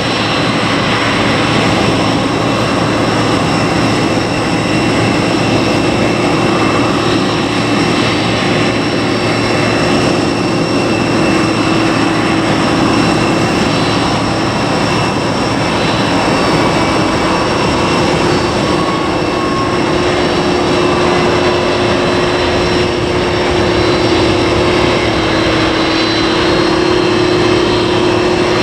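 Jet aircraft engines running steadily, a loud even rush with a few steady whining tones on top.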